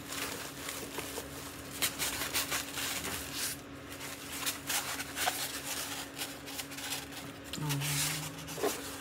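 Rustling, scraping and small knocks of packaging being handled as an item is worked out of its styrofoam packing, with a faint steady hum underneath.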